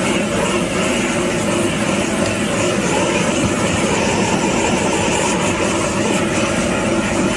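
Handheld gas blowtorch running with a steady rushing flame noise as it sears cubes of beef on a flat griddle.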